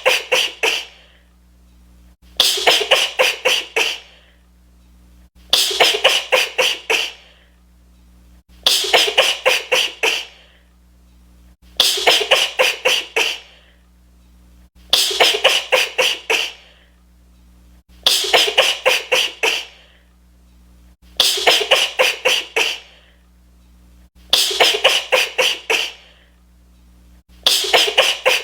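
A woman's rapid sneezing fit: about six quick, sharp sneezes in a row within a second and a half. The same burst repeats about every three seconds, as a loop.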